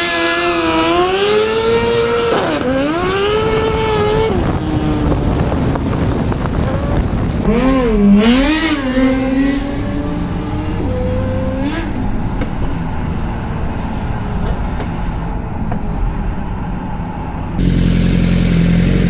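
Suzuki GSX-R1000 L7 inline-four with a full Akrapovic exhaust revving, its pitch rising and falling several times, heard from a following car. Near the end it changes abruptly to a steady idle.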